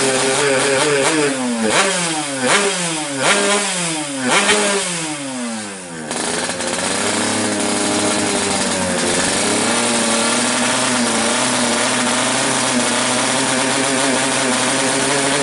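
Yamaha RX-King's single-cylinder two-stroke engine in 'bleyer' tune, revved in about five quick throttle blips, then settling to a steady idle about six seconds in.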